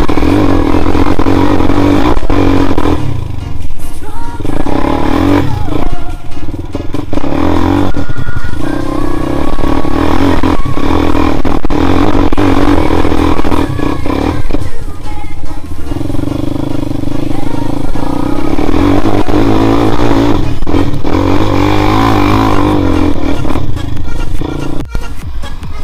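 Quad bike (ATV) engine revving and pulling hard while riding off-road over sand, with clattering from the machine, mixed under loud background music.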